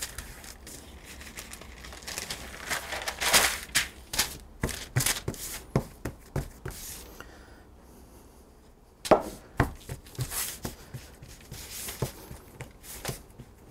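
Parchment paper rustling and crinkling under hands as pie-crust dough is turned over and pressed flat by hand, in irregular soft taps and rustles. A quiet lull comes a little past the middle before the patting and rustling start again.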